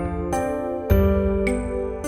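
Background music: gentle instrumental piece with bell-like notes over a soft low beat.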